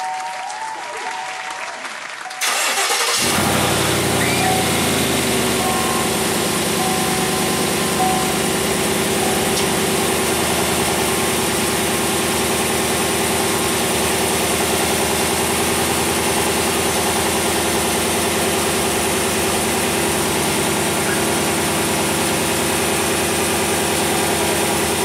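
Chevrolet Silverado pickup's engine starting about two and a half seconds in, catching at once and then idling steadily.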